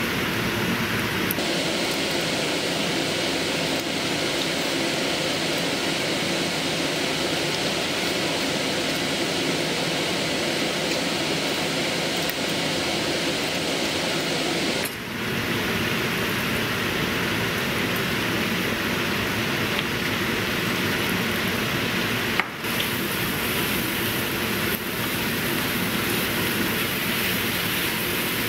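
Gopchang (small intestines) sizzling steadily as they fry in a frying pan. The sizzle dips briefly about halfway through and again about three quarters of the way through.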